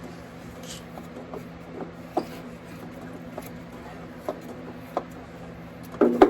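Scattered light clicks and knocks of tools and parts being handled, with a louder clatter about six seconds in, over a steady hum.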